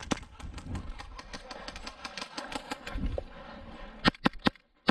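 A rough rustling, rattling noise of movement, then three sharp, quick cracks about four seconds in: airsoft gun shots fired one at a time.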